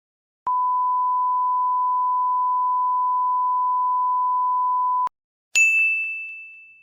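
A steady, pure electronic beep tone, like a censor bleep, held for about four and a half seconds and cut off sharply. Half a second later comes a single bright ding that rings and fades away.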